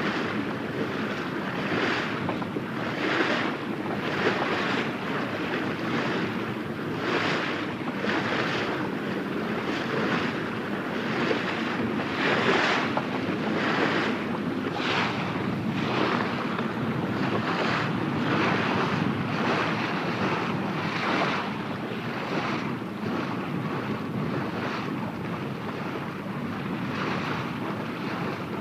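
Sailboat under way: water rushing and splashing along the hull in swells about once a second, over steady wind noise.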